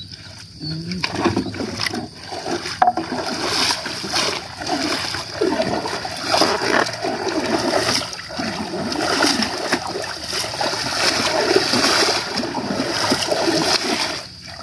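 Water splashing and churning in irregular surges as a gill net is hauled up by hand over the side of a wooden boat, with a stronger stretch of splashing near the end.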